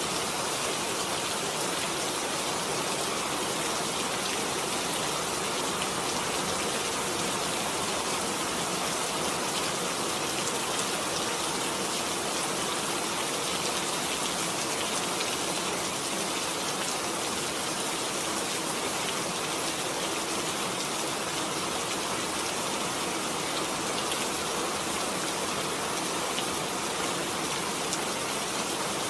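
Recorded rain falling steadily, an even hiss that holds without a break.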